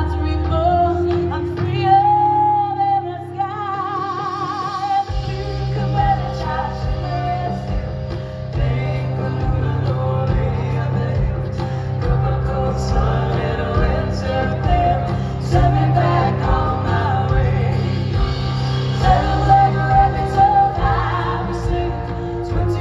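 Live band music with a singer's held, wavering notes, heard from the audience. Deep bass comes in strongly about five seconds in and carries on under the voice.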